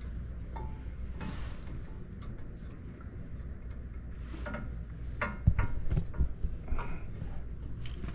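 Metal clicks and knocks of brake pads and caliper hardware being fitted by hand onto an F-150's front brake rotor, with a run of sharper knocks about halfway through.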